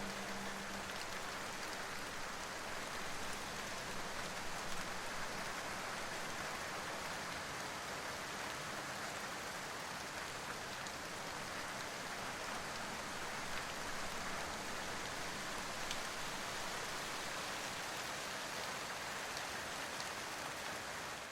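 Steady rain falling, an even hiss of rain on a surface, with the last notes of soft background music dying away in the first couple of seconds.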